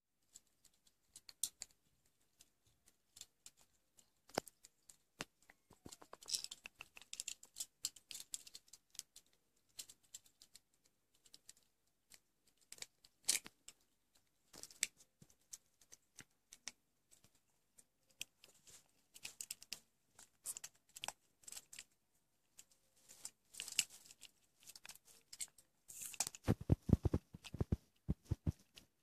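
African grey parrots' beaks clicking, gnawing and scraping at small plastic toy cars: irregular ticks and short scratchy rasps. A cluster of louder thumps comes near the end.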